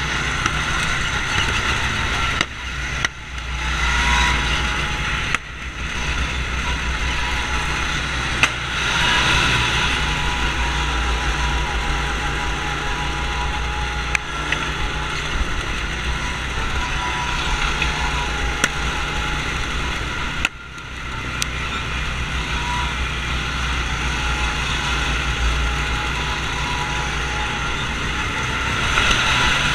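Small single-cylinder gasoline go-kart engines running under throttle, the rider's own kart the loudest. The level dips briefly three times.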